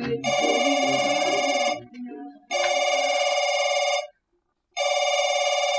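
A telephone ringing: three rings of about a second and a half each, with short pauses between them.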